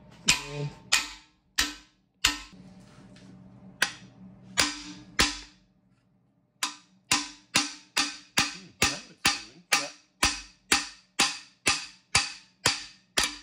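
Heavy hammer striking the end of a long steel cam bearing removal bar, sharp metal-on-metal blows driving a camshaft bearing out of a Triumph TR4 engine block. The blows come irregularly at first, then in a steady run of about two a second from about halfway through.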